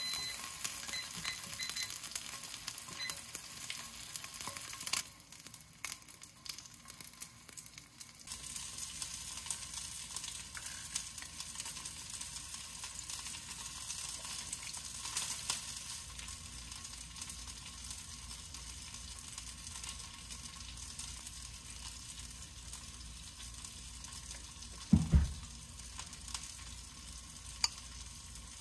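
Food sizzling as it fries in a pan, with a steady hiss. The hiss drops off about five seconds in and picks up again a few seconds later. One heavy thump comes near the end.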